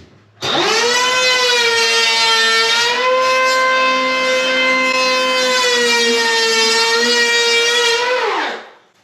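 DeWalt DCP580 20-volt cordless hand planer spinning up to a high, steady whine and making a pass along the edge of a heavily painted door, its pitch sagging slightly now and then as the blades bite. Near the end it is switched off and winds down with a falling whine.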